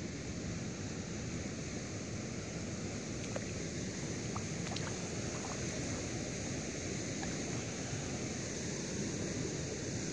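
Steady wind noise on the microphone with a constant high hiss, and a few faint short ticks near the middle.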